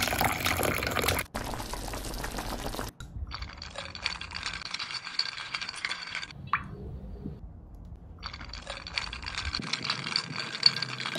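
Slime being squished and pressed by hand: dense, wet, sticky crackling and popping, in several short clips cut together, with a quieter stretch in the middle.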